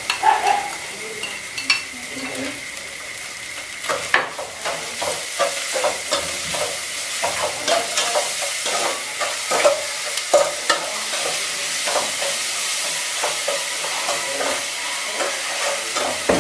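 Food sizzling in an aluminium pot on a portable gas stove while a metal ladle stirs and scrapes against the pot. There are a few knocks at the start as a plate is scraped out into the pot, then frequent clicks and scrapes of the ladle over a steady hiss.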